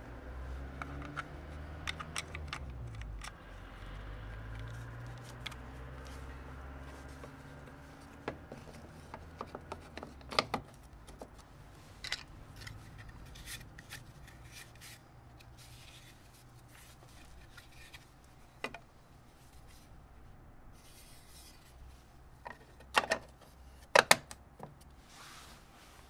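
Plastic clicks, taps and rubbing from hands working a car's front turn-signal light unit, fitting the bulb into the housing and pressing the amber lens unit into the bumper. The sharpest clicks come in a quick cluster near the end, as the light unit snaps into place.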